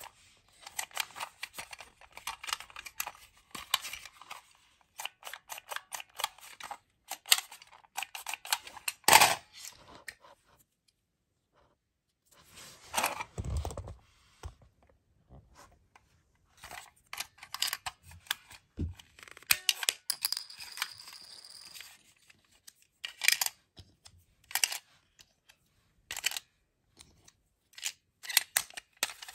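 Plastic toy mini disc shooter clicking and rattling in quick bursts as its trigger and mechanism are worked, with pauses between. There is one sharp knock about nine seconds in and a low thud a few seconds later.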